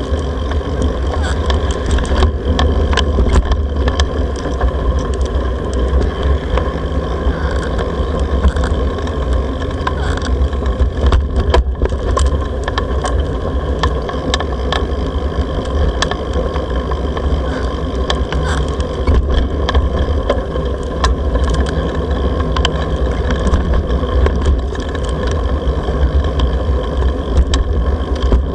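Steady traffic noise from cars on a multi-lane road, under a heavy low rumble of wind on an action camera's microphone as it moves along.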